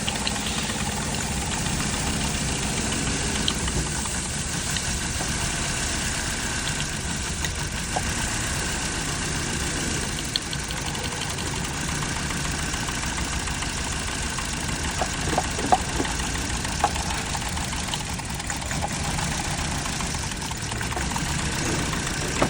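Car engine idling steadily, the engine under test for a misfire, with a few short sharp clicks about fifteen to seventeen seconds in.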